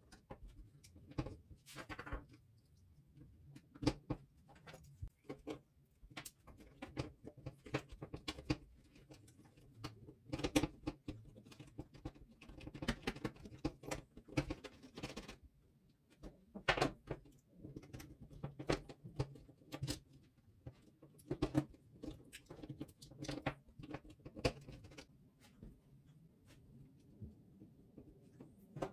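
Hands fitting a hot glue gun's plastic trigger and internal parts back into its housing: irregular light clicks, taps and scrapes of plastic parts and handling, some sharper clicks standing out.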